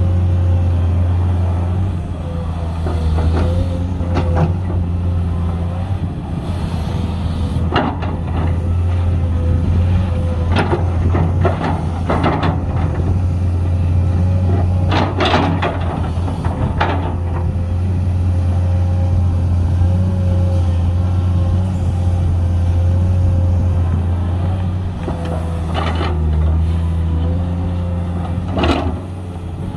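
Komatsu 210 excavator's diesel engine running steadily under load, with a constant hydraulic whine. A dozen or so sharp knocks and scrapes come at irregular moments as it digs.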